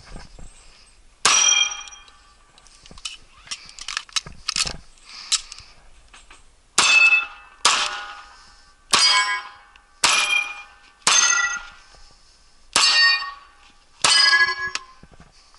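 Sig P226 Mk25 9mm pistol shots with steel targets ringing after the hits: about eight loud clangs with a short metallic ring. A cluster of sharper, shorter cracks comes a few seconds in, and the ringing hits come about a second apart in the second half.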